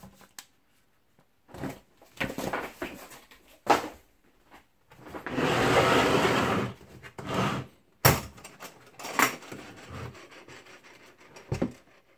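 Unboxing handling noises: paper and cardboard rustling, then a hard plastic tool case sliding with a long rubbing scrape of about a second and a half. After it come sharp plastic clicks as the case's latches are snapped open, and a low thump near the end.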